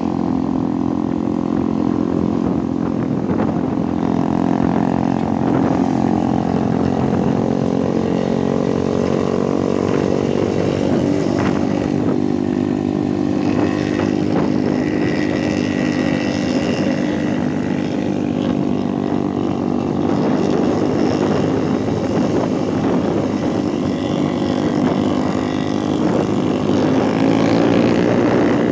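A Putri Luragung bus's diesel engine running steadily through a modified 'ngorok' exhaust, giving a deep, droning, snore-like rumble. The engine's pitch rises a little near the end.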